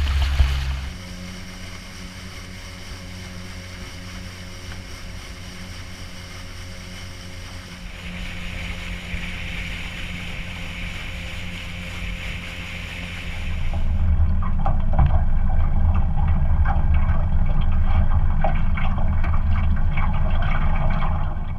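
Small boat's motor running steadily with water noise. The sound shifts abruptly about a second in, around eight seconds and around fourteen seconds, where it turns louder and heavier in the low end.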